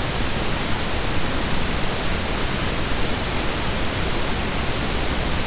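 Steady, even hiss of the recording's background noise, with no other sound.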